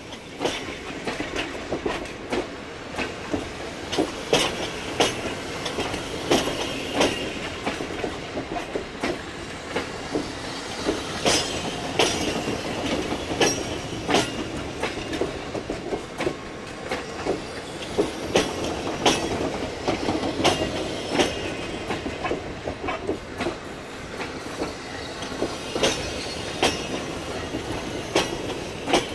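Passenger coaches rolling slowly past during a shunting move. Their wheels give repeated, irregular clacks over the rail joints and points, over a steady rumble, with brief wheel squeals.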